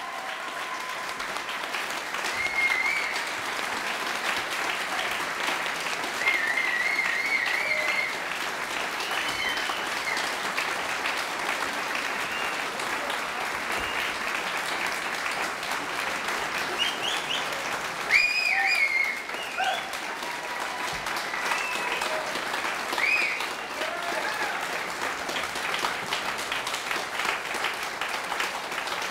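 A crowd applauding steadily, with scattered whoops and cheers over the clapping.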